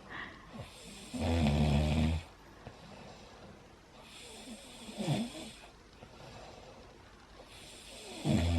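A man snoring loudly in his sleep: one long snore about a second in, a softer breath out around the middle, and the next snore starting just before the end.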